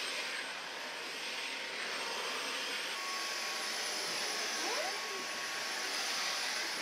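Cordless stick vacuum cleaner running steadily as it is pushed over a hard floor: an even rushing hiss with a thin high motor whine.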